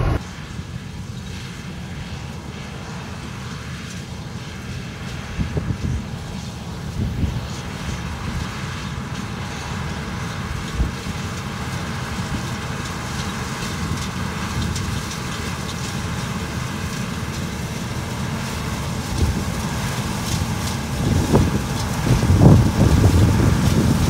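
Old John Deere combine running while harvesting soybeans, a steady low rumble that grows louder as it approaches and passes close near the end, with wind buffeting the microphone.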